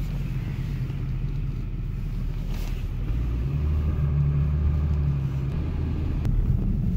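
Car cabin noise while driving slowly: a steady low engine hum and tyre rumble, the engine note a little stronger from about three seconds in until about five and a half seconds, with one brief click near the end.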